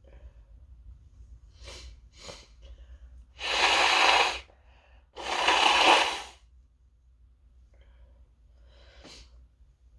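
A person coming down with an illness sniffs sharply twice, then gives two loud, breathy sneezes about a second long each, one after the other. Faint breathing follows near the end.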